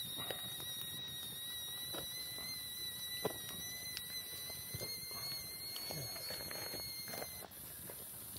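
A steady high-pitched whistle, with scattered light clicks and knocks; the whistle cuts off abruptly about seven seconds in.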